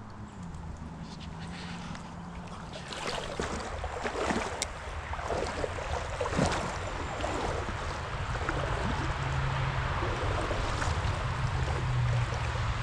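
Creek water sloshing and swishing around someone wading in a shallow stream, with some brush rustling.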